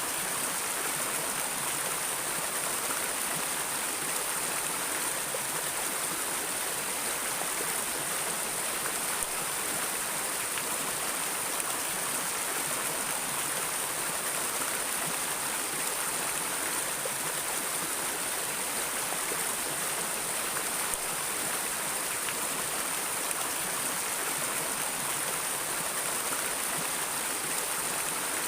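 Steady rushing of flowing river water, even and unbroken, with a bright hiss.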